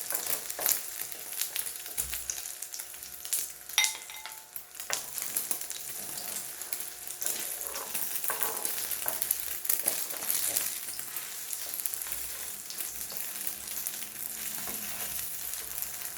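Egg-dipped, starch-coated tofu pancakes sizzling in oil in a frying pan, nearly cooked through. A few sharp clicks come through, and there is a short ringing clink about four seconds in.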